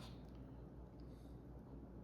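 Near silence: a steady low room hum, with a faint small click or two of handling.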